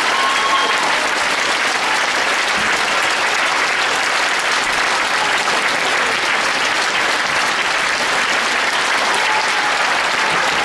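A large audience applauding steadily, a dense, even clapping that does not let up.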